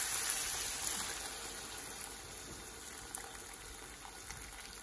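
Stock being poured through a wire-mesh strainer into a pan of vegetables: a steady splashing pour that gradually gets quieter.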